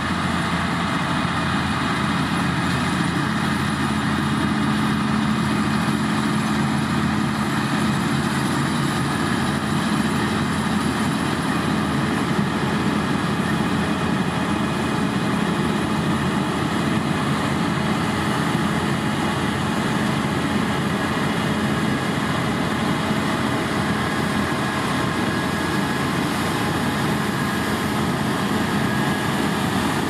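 CLAAS Lexion combine harvester running steadily under harvesting load while its header cuts standing grain: an even, unbroken engine and machinery drone.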